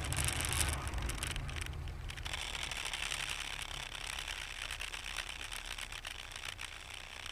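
Car's engine and road noise heard from inside the cabin through a dashcam's microphone: a steady low rumble under a hiss, a little heavier for the first two seconds.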